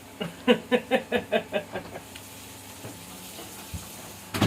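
Eggs sizzling steadily in a frying pan. Over the first two seconds a person laughs in a quick run of about eight pulses that fade as they go, and there is one sharp knock near the end.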